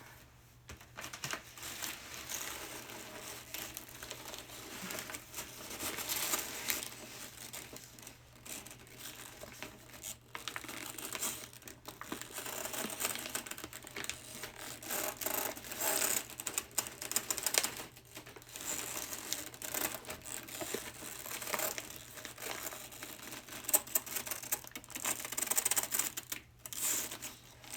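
Plastic packaging crinkling and rustling with irregular light clicks and knocks as plastic water bottles are handled.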